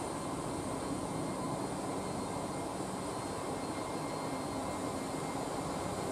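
Steady whir of a Siemens Vectron (class 111Ed) electric locomotive's cooling fans and traction equipment as it creeps slowly forward hauling a train of loaded coal wagons.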